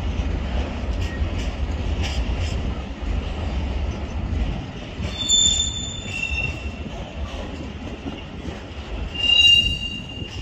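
A train running past with a low rumble and regular clicking in the first seconds. Its wheels squeal in short high-pitched bursts about halfway through and again, loudest, near the end.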